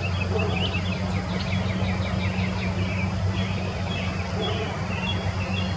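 Small birds chirping in quick, repeated short notes over a steady low drone.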